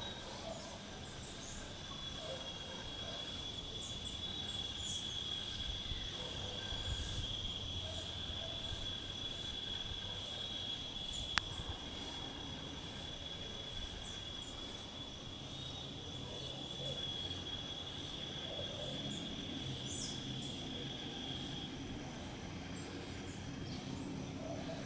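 Steady high-pitched insect trill, starting about two seconds in and stopping a few seconds before the end, with a single sharp click near the middle.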